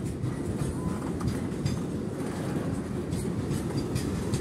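Container freight train's wagons rolling past on the track: a steady low rumble with wheels clicking over the rail joints.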